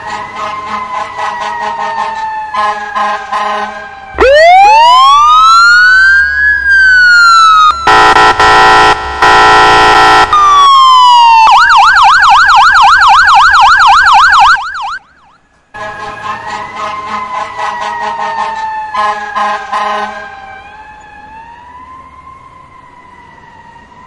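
A sequence of emergency vehicle sirens. It opens with a slowly falling siren tone over rapid ticking. About four seconds in, a wail sweeps up and falls back, followed by loud steady air-horn blasts broken by short gaps. Next comes a fast yelp siren, a brief break, the falling tone again, and a quieter wavering siren near the end.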